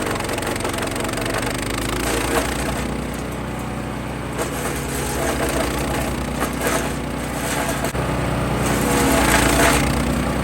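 MechMaxx 6-inch wood chipper, powered by a Kohler Command Pro 14 hp engine, running steadily while chipping branches. Bursts of wood cracking and splintering come through the engine sound as pieces go through, loudest toward the end.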